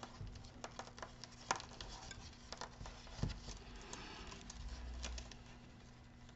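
Thin jumper wires and small plastic gel-filled crimp connectors handled by fingers as the wires are pulled apart: faint scattered light clicks and rustling, with sharper ticks about one and a half and three seconds in.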